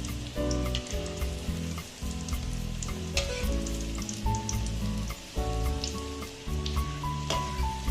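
Breaded chicken fingers sizzling and crackling as they deep-fry in hot oil in a kadai, with scattered sharp pops. Background music plays throughout.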